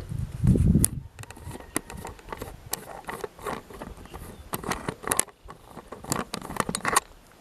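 1963 Royal Empress manual typewriter being typed on: irregular keystrokes, typebars clacking against the platen several times a second, from about a second in until shortly before the end. It opens with a louder low thump.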